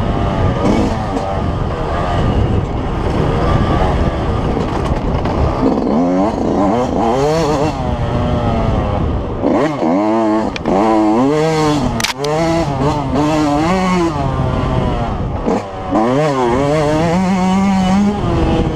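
Yamaha YZ125 two-stroke single-cylinder engine revving hard under race riding, its pitch climbing and dropping again and again with throttle and shifts. There is one sharp click a little past the middle.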